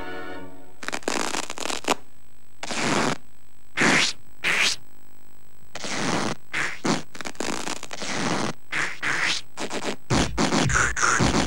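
Cartoon sound effects of a foot scraping and pulling at sticky gum on a stage floor: a string of short, brushy scrapes and swishes, some sliding up or down in pitch. They come in irregular bunches and grow busier in the second half.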